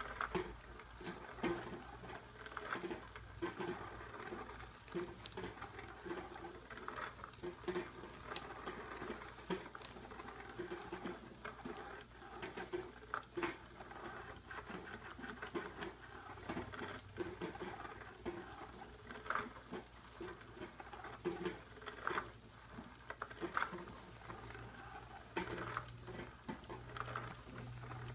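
Electronic cat toy running: a small motor hums while its wand darts about under the nylon cloth cover, making irregular scratching, rustling and tapping sounds.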